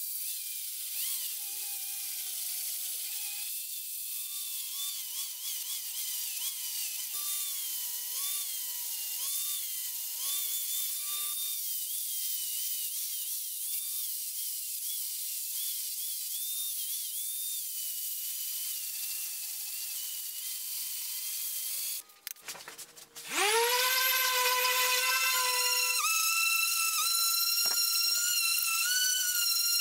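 Angle grinder grinding the steel face of an anvil, its whine wavering as the disc works the metal. About 22 seconds in it stops. It then starts again and winds up with a rising whine to a steady high pitch, now fitted with a flap disc.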